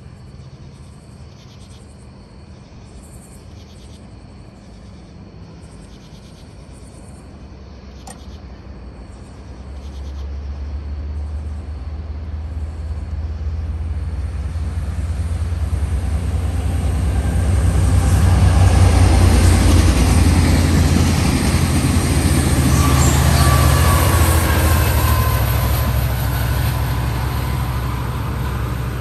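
Crickets chirping in pulses, then a diesel train approaching and passing: a low engine rumble with wheel-on-rail noise that builds from about a third of the way in and is loudest just past the middle, easing slightly near the end.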